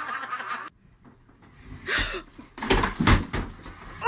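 Laughter that cuts off under a second in, then after a brief hush a few dull thumps and knocks, the loudest about three seconds in.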